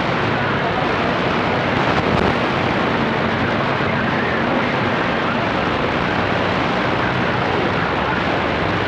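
Steady static hiss from a CB radio's speaker while no station is transmitting, with faint wavering tones buried in the noise.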